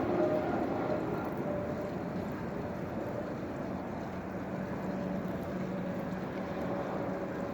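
Steady wind and water noise with a faint low hum underneath, no sudden events.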